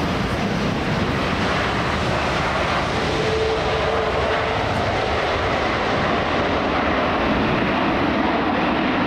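Jet airliner on its landing approach passing close by, a steady roar of engines and rushing air, with a brief droning tone in the middle.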